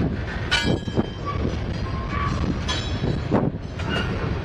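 Freight train's covered hopper cars rolling past close by: a steady rumble broken by a run of sharp knocks from the wheels over the rail and brief high metallic squeals.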